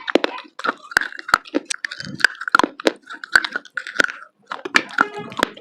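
Someone biting and chewing hard dry clay, one sharp crunch after another, roughly two or three a second.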